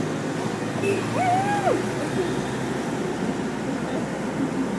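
Road and engine noise heard inside a moving car, steady throughout. About a second in, a short hooting tone rises, holds and falls away.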